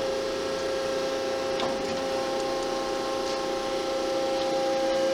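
The hydraulic pump motor of a Landis 2R universal grinder running with a steady hum and whine, building up hydraulic pressure.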